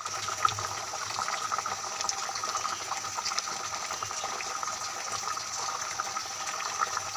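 Beef curry boiling in a pot: a steady bubbling made of many small pops and crackles.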